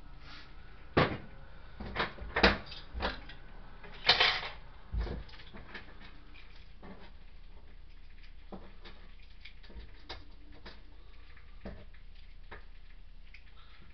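Dishes and kitchenware handled and set down during washing up: a run of hard knocks and clunks in the first five seconds, the loudest about four seconds in, then only light scattered clicks.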